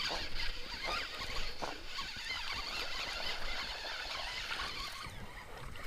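Spinning reel being cranked as a hooked fish is reeled in: a steady rasping from the reel with a few light clicks.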